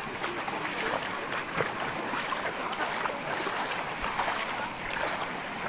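Shallow river water running over rocks: an even rushing hiss.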